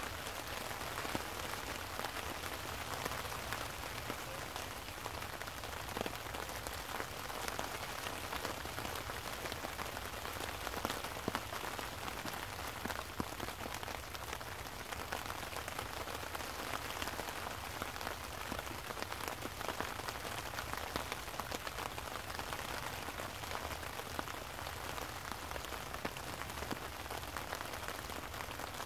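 Steady rain falling, with many individual drops ticking close by.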